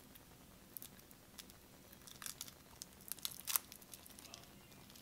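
Fingers picking at the sealed packaging of a Yu-Gi-Oh! card deck to open it: faint, scattered crinkling and small ticks, with louder clusters about two seconds and three and a half seconds in.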